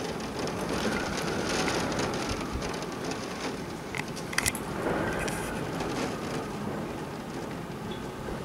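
Heavy rain pouring steadily in a thunderstorm, with a couple of sharp ticks a little past the middle.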